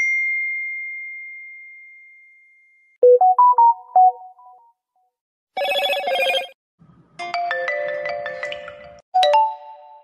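A run of smartphone notification tones, one after another: a single bell-like ding that fades away over about three seconds, then a quick group of short notes, a brief bright chime, and a couple more short melodic chimes, with short silences between them.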